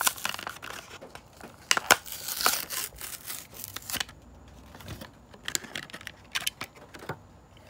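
Hot Wheels blister-pack card being torn open by hand: the cardboard backing ripping and the plastic blister crinkling. Irregular crackles and clicks come thickest between about two and four seconds in, then thin out to a few scattered clicks.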